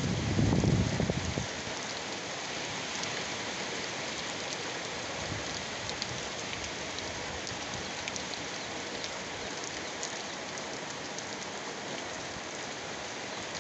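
Heavy rain falling steadily, an even hiss with scattered ticks of drops striking surfaces. A louder low rumble sits under it for the first second and a half, then eases.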